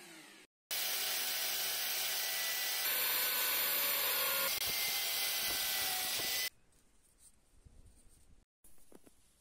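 Bench drill press running, its bit boring holes through a small turned wooden wheel hub: a loud, steady machine noise with a faint whine that shifts slightly a couple of times and cuts off suddenly about six and a half seconds in. A few faint handling clicks follow.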